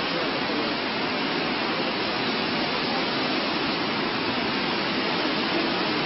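Steady rushing noise with no distinct events, even throughout.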